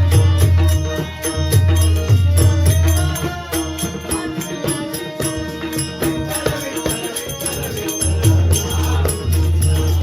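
Marathi devotional abhang bhajan: voices singing over a quick even beat of small hand cymbals and a deep drum. The deep drum strokes drop back in the middle and come in strongly again near the end.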